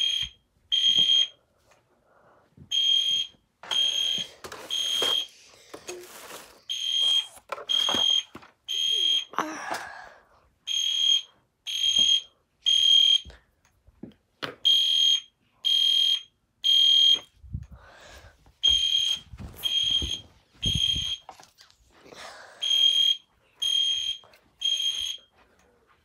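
Fire alarm sounding the temporal-three evacuation pattern: three short, high-pitched beeps about a second apart, then a pause, repeating about every four seconds. Low thumps and rustling of movement sit underneath.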